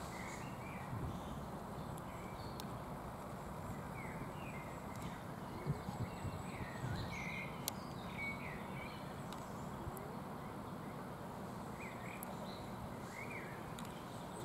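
Outdoor pond ambience: a steady low background noise with short bird chirps scattered through it, and a few faint clicks.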